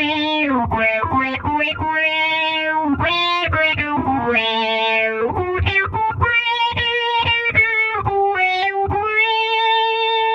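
Electric guitar played through a Source Audio Soundblox 2 Stingray Multi Filter pedal: a single-note line of held notes, some sliding in pitch into the next.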